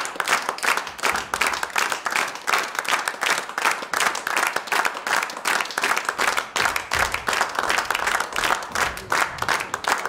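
Large theatre audience applauding: dense, steady clapping from many hands.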